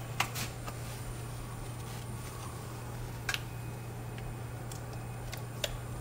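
Air handler blower running with a steady low hum, with a few sharp clicks and taps as the static pressure probe is put into the supply duct: one pair just after the start, one about three seconds in and one near the end.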